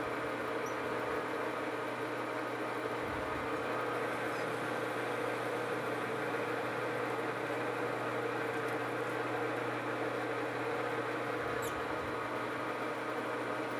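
Metal lathe running steadily, a constant hum made of several steady tones, while its toolbit cuts a hot-rolled steel bar.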